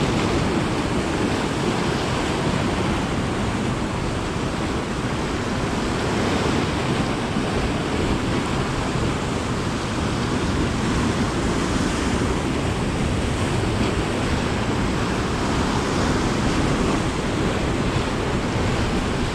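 Sea surf washing against a rocky shore, with wind blowing across the microphone: a steady, unbroken rush of noise.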